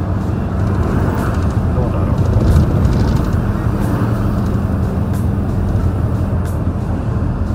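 A heavy truck's diesel engine droning steadily while driving, mixed with tyre and road noise, heard from the cab through a slightly open window.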